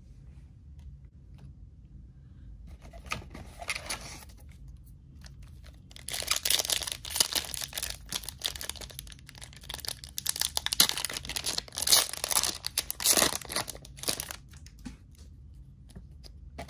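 Lorcana foil booster pack being torn open and its wrapper crinkled: a few brief rustles, then about eight seconds of loud, crackly tearing and crinkling in bursts, fading to light handling near the end.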